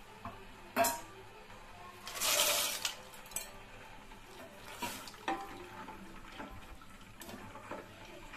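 Wooden spoon stirring penne in a stainless steel pot of hot water, with a few sharp knocks of the spoon against the pot and a short swish of water about two seconds in.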